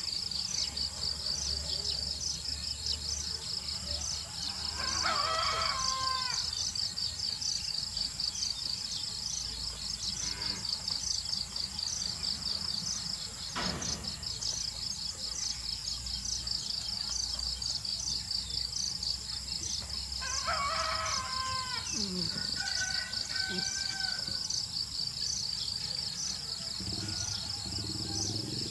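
Steady, rapid chirring of insects, with a rooster crowing twice, about five seconds in and again about twenty-one seconds in. A single sharp click about halfway through.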